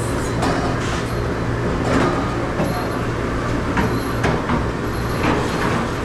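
Restaurant dish station noise: a steady low machine hum under a constant rushing hiss, with dishes clattering in several short knocks.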